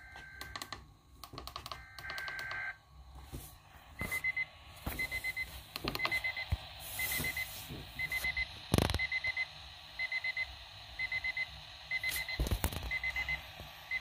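Midland weather alert radio sounding its alarm: quick groups of high-pitched beeps repeating about once a second, the receiver's alert for an incoming winter storm warning. It opens with a few short two-tone bursts, and a couple of dull knocks from the radio being handled come partway through.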